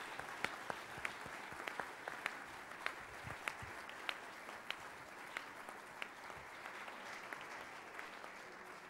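Audience applauding: many hands clapping in an even patter, with single sharper claps close by standing out about twice a second, easing a little near the end.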